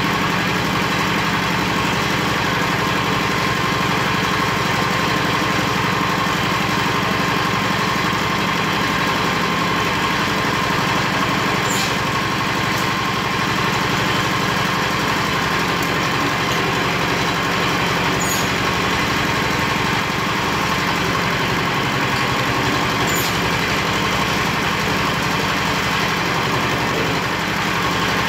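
Engine of a construction material hoist for concrete and goods running steadily, with a few short high ticks.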